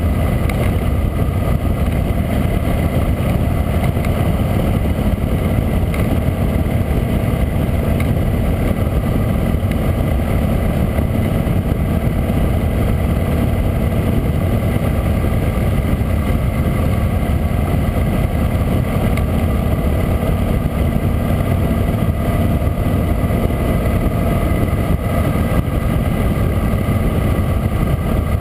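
Harley-Davidson V-twin motorcycle running steadily at road speed, heard through a GoPro's microphone with wind rushing over it.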